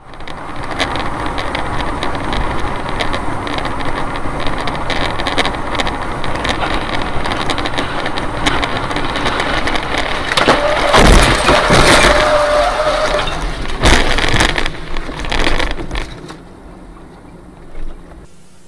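Road and engine noise inside a moving car, picked up by its dashcam on a wet highway. About eleven and fourteen seconds in come loud crashing bangs: an airliner crashing across the road ahead. The noise falls away after about sixteen seconds.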